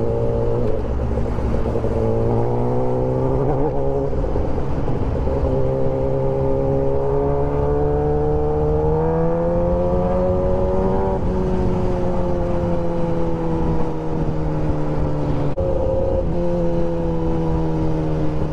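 Kawasaki ZX-10R superbike's inline-four engine heard from the rider's seat under way, its note climbing steadily for several seconds as the bike accelerates, then easing down slowly, with a short break in the note about three-quarters of the way through.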